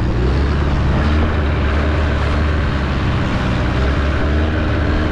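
Longtail boat's inboard engine running steadily under way, with wind and rushing water from the wake.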